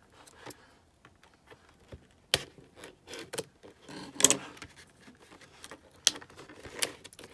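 Scissors snipping at the seal of a cardboard watercolour-set box, with the box being handled. A handful of sharp clicks, the loudest about four seconds in, and a short rustle of card.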